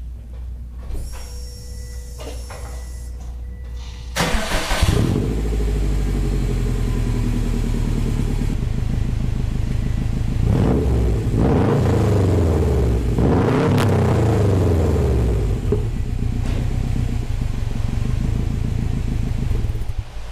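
A 2007 Subaru Impreza WRX STI's turbocharged flat-four starts through a muffler-delete exhaust, with the muffler cut off and straight pipe welded in: a short crank and catch about four seconds in, then a steady idle. It is revved twice, rising and falling in pitch, and cuts off just before the end.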